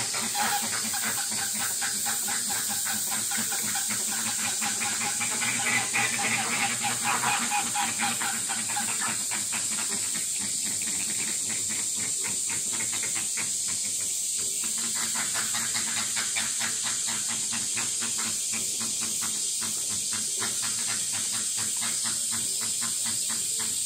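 Cicadas in the trees, a steady high hiss with fast, even pulsing that is louder for the first nine seconds or so.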